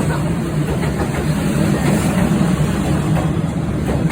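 Train running, a steady low rumble.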